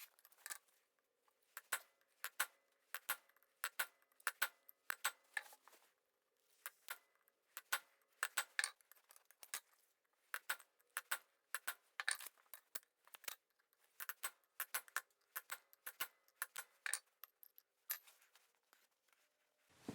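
Light, irregular metallic clicks and clinks, dozens of them, of steel tools and stock being handled at the anvil; no heavy hammer blows.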